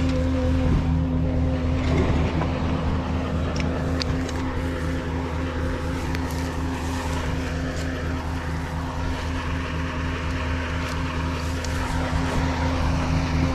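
Tow truck's diesel engine running at a steady idle, an unchanging low hum.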